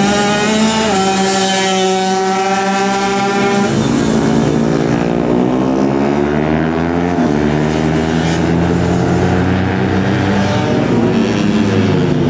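Two-stroke 125 cc underbone racing motorcycle engine running at high revs. Its pitch steps down about a second in and again near four seconds, climbs steadily until about seven seconds, drops, then rises again as the bike accelerates through the gears.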